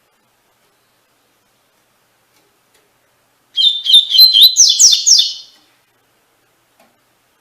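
Double-collared seedeater (coleiro) singing one phrase of its 'tui-tui' song: about two seconds of quick, high, repeated notes starting about three and a half seconds in.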